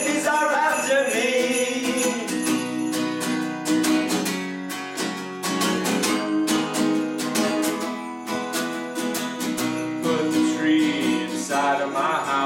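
Acoustic guitar strummed steadily as a folk-style song accompaniment, with a sung voice in the first second or so and again near the end.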